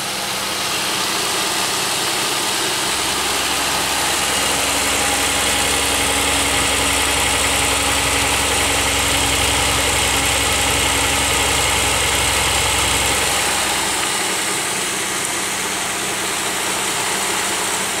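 Pontiac Aztek GT's 3.4-litre V6 idling cold and running rough with a misfire, which the owner suspects comes from a bad spark plug wire on cylinder four. The low rumble gets deeper and louder from about three seconds in and eases off near thirteen seconds.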